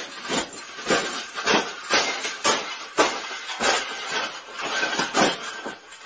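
Wire bird cage being stomped flat underfoot: repeated stamps at about two a second, each with a metallic crunch and the rattle and clink of bending wire bars.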